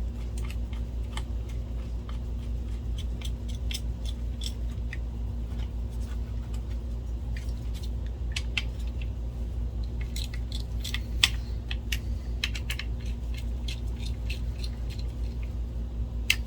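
Scattered light clicks and taps of small screws and metal parts being handled with a screwdriver during projector reassembly, the sharpest about 11 seconds in and just before the end, over a steady low hum.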